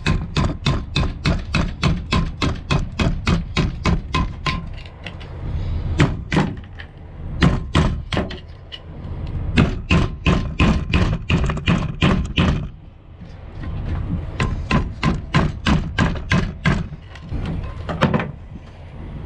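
Rapid hand-hammer taps, about four to five a second, in several runs with short pauses between them, knocking hardened concrete off concrete pump parts that are being cleaned for new seals. A steady low rumble runs underneath.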